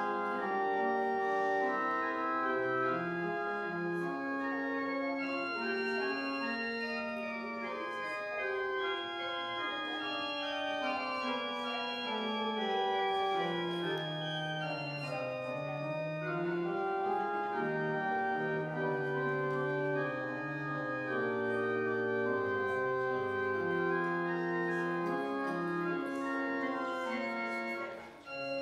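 Church organ playing a slow prelude before the service: sustained chords over a slowly stepping bass line, with a brief break between phrases near the end.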